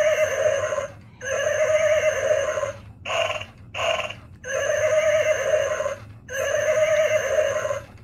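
Remote-control plush unicorn toy playing recorded horse neighs from its built-in sound unit, a string of whinnies of about a second and a half each, with two short ones in the middle.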